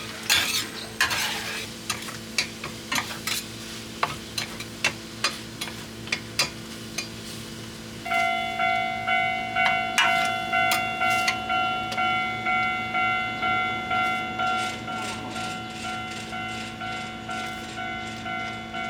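Metal spatulas clack and scrape on an iron griddle while organ meat sizzles, with sharp strikes about once a second. About eight seconds in, background music with a steady pulsing beat comes in over the frying.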